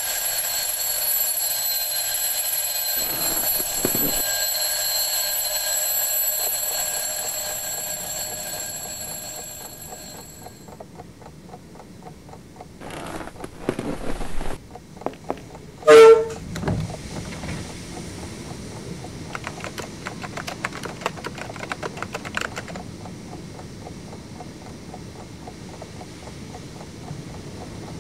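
Mechanical twin-bell alarm clock ringing steadily, fading and stopping about ten seconds in. Quieter scattered sounds follow, with one brief loud sharp sound about sixteen seconds in and a run of rapid clicks after it.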